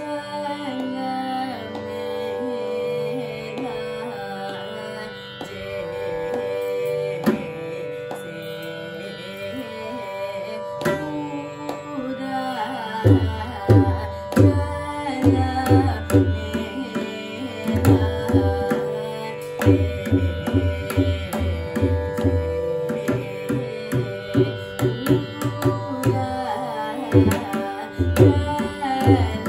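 Carnatic music: a Darbar-raga varnam in Adi tala, sung over a steady drone. For the first dozen seconds the melody glides with only sparse drum strokes. About 13 s in, the mridangam comes in with dense rhythmic strokes and deep booming bass beats.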